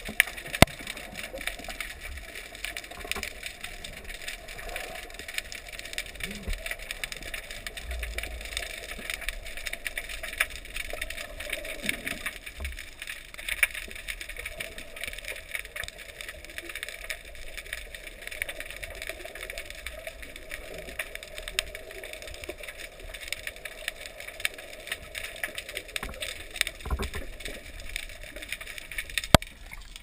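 Underwater ambience heard through a camera housing: a steady, dense crackle of tiny clicks, with a few low thumps.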